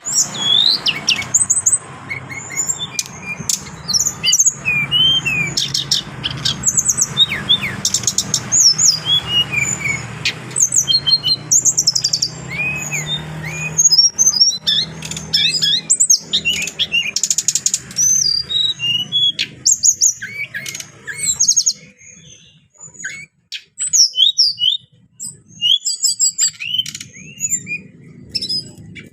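Brown-chested jungle flycatcher singing continuously: quick, varied clear whistled phrases with rapid trills. A steady low hum lies under the song for the first half and fades about halfway through.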